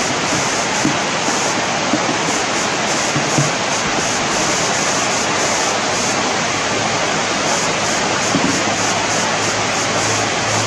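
Steady rush of flowing river water, with a few small knocks and splashes as a wet cast net is handled.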